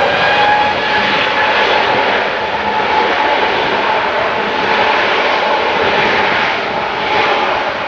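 Jet airliner's engines: a loud, steady rush of noise with a held whining tone through it.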